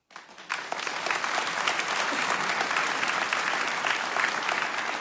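Audience applauding at the end of a song: many hands clapping in a dense, steady patter. It starts abruptly just after the start and fills out within half a second.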